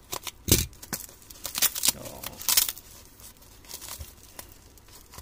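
Black plastic shipping bag being slit with a utility knife and torn open by hand: several sharp rips in the first three seconds, then quieter crinkling of the plastic as it is pulled apart.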